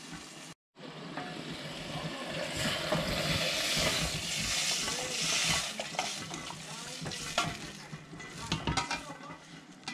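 Food sizzling as it fries in a pan while it is stirred, with a few sharp clicks and knocks of the utensil against the pan in the second half.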